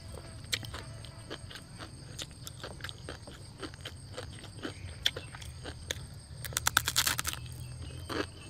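Chewing and crunching on dry, uncooked noodles, with scattered crisp crunches and a quick run of louder crunches about seven seconds in.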